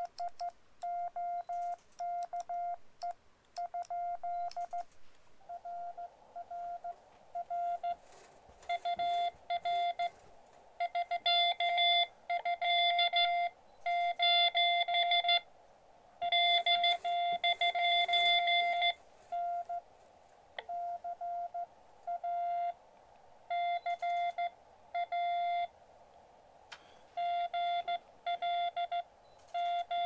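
Morse code (CW) from a Xiegu X-6100 transceiver: a steady single-pitch beep keyed on and off in dits and dahs. For the first few seconds the tone is clean, his own sidetone as he sends. After about five seconds a band of receiver hiss comes up under it, and an answering station's code comes in louder.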